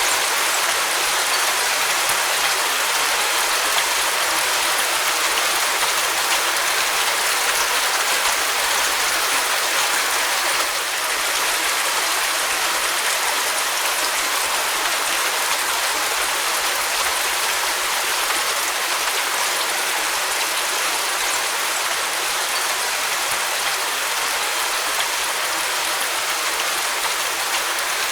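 Steady rain: an even, dense hiss of falling rain with no distinct drops or thunder, easing very slightly about ten seconds in.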